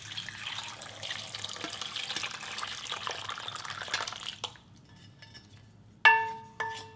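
Cooked red beans and their cooking water pouring from a stainless steel saucepan into a mesh strainer over a stainless bowl: a steady splashing rush for about four seconds that then dies away. Near the end, two ringing metallic knocks on the stainless pans.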